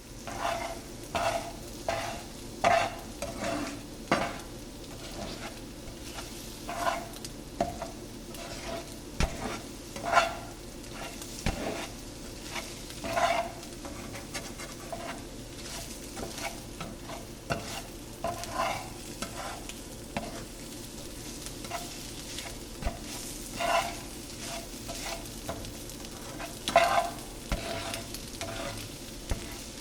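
Scrambled eggs sizzling in a frying pan while a spatula stirs and scrapes them, in short irregular strokes about once a second over a steady sizzle.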